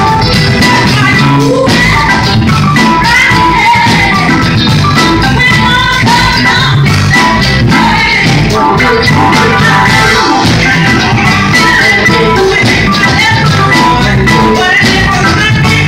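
Live band playing loudly, drums and electric guitar, with a woman singing lead into a microphone.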